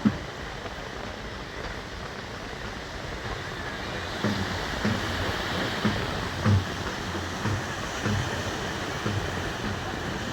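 Sea surf washing on the shore, a steady rushing hiss, with faint low thuds recurring from about four seconds in.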